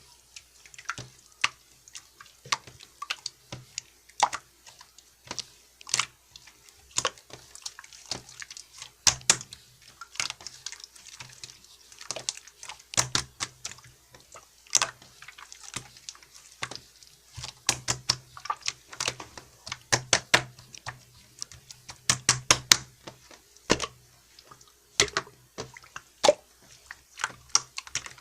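Irregular sharp clicks and taps, several a second, some much louder than others.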